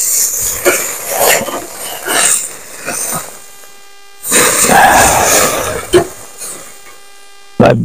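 Metal spatula scraping and knocking on a small charcoal grill's grate as hamburger patties are turned, through a clip-on wireless mic. A louder rushing noise about four seconds in lasts over a second.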